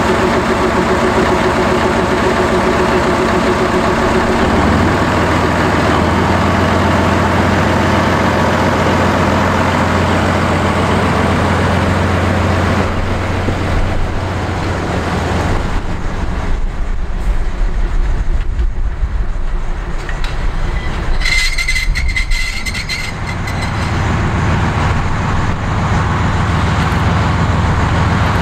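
SM30 diesel shunting locomotive's engine running. About five seconds in it settles into a deeper, steady drone as the locomotive pulls away, then grows fainter as it moves off. A brief high-pitched squeal comes about two-thirds of the way through.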